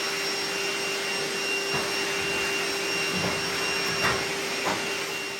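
A small electric motor running steadily with a rushing air noise and an even whine, with a few light knocks partway through.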